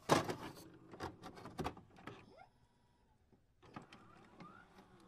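Faint glitch sound effects for an animated loading screen: a short burst of static near the start, scattered clicks, and a couple of brief rising whirs, with a quiet gap in the middle.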